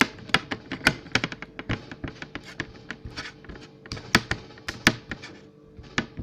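A stirring utensil repeatedly dabbing and tapping against a glass bowl of stiff, sticky melted gummy bears: irregular sharp taps, several a second, some louder knocks among them.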